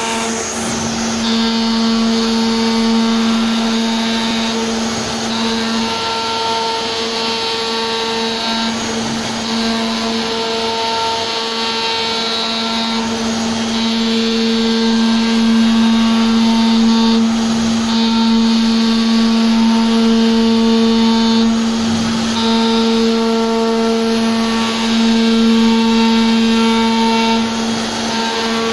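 CNC router spindle running with a steady whine while its bit engraves grooves into a wood panel. A higher cutting hiss comes and goes in stretches as the bit moves through the pattern.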